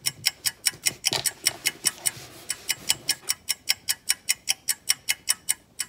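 Rapid, even ticking at about five ticks a second, steady throughout. About a second in there is a soft thud, followed by a rustling noise that lasts about two seconds.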